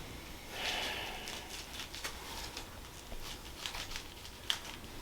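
Quiet rustling with a soft swell early on, then a few faint, brief clicks; these are handling sounds of a patient being moved on a chiropractic treatment table.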